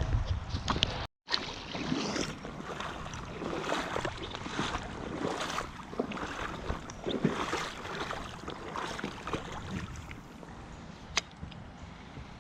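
Water splashing and sloshing in a stream in irregular surges, with one sharp click near the end.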